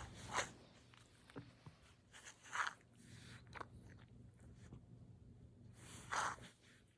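A cat biting and chewing on catnip: a few short crunchy bites at uneven intervals, the loudest about two and a half and six seconds in, over a faint steady low hum.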